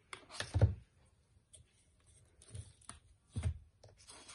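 A few short knocks and thumps, the loudest about half a second in, as a twin-fan heater blower motor with plastic squirrel-cage wheels is handled and set down on a table. The motor is not running.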